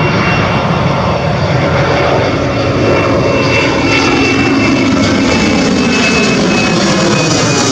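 Twin-engine jet airliner climbing out after takeoff and passing low overhead: loud, steady jet engine noise with a thin high whine, and tones that slide down in pitch as it goes over.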